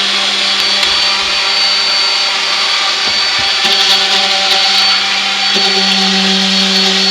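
Electric orbital sander running steadily while sanding wood, a continuous motor hum that grows louder about five and a half seconds in.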